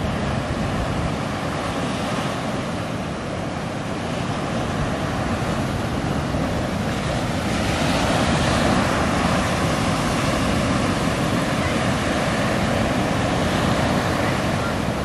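Surf breaking and washing in the shallows, with wind buffeting the microphone; the rush of water swells louder a little over halfway through.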